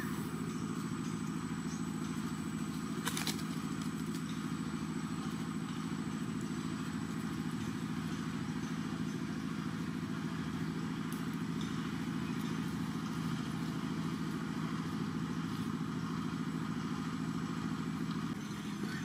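Steady low drone of an engine running at idle, with one sharp click about three seconds in.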